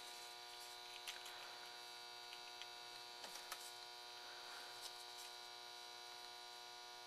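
Faint steady electrical hum made of several steady tones, with a few faint light clicks of small parts being handled as header pins are fitted into plastic female sockets on a circuit board.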